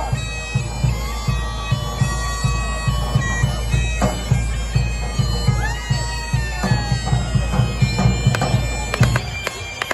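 Bagpipe music with a steady drum beat, the pipes' drone running underneath. A few sharp firework bangs come near the end.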